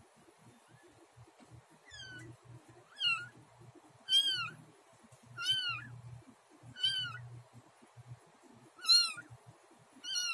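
Newborn kitten mewing: a run of about six thin, high-pitched cries, each rising then falling in pitch, roughly one a second, starting about two seconds in.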